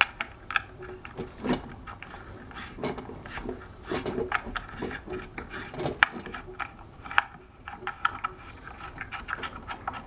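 Irregular small metal clicks and scraping as the Allen bolts clamping a hoverboard's hub-motor wheel axle are worked loose by hand, with a few sharper clicks in the second half.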